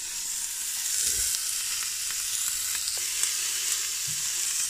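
Fillet steak sizzling as it sears in the hot inner pot of an electric multi-cooker: a steady high sizzle, with a few faint knocks.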